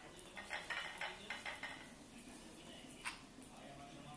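Russian Toy puppy eating wet food off a plate on a tile floor: a quick run of clinks and scrapes of the plate in the first two seconds, and one more about three seconds in.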